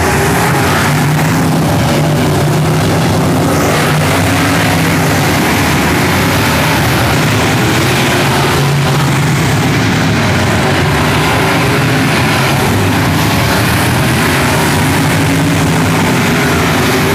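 Race car engines running in a loud, steady drone.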